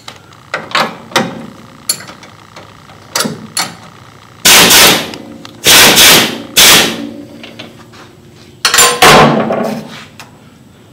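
Power ratchet run in five short bursts on the sway bar end link nut, tightening it down to compress the new bushings, after a few sharp metallic clicks as the tool and socket are fitted.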